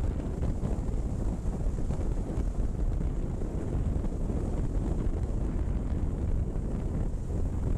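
Wind buffeting a motorcycle rider's helmet-mounted microphone at road speed: a steady, low, rushing rumble that drowns out the bike's engine and the road.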